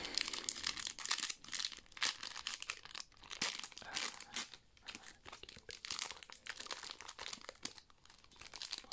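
Pokémon trading card booster pack's foil wrapper being torn open and crinkled by hand, a run of irregular crackling and rustling.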